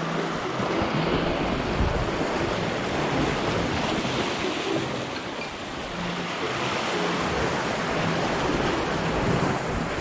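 Sea waves washing against a rocky shore, a steady rushing that swells and eases, with wind buffeting the microphone.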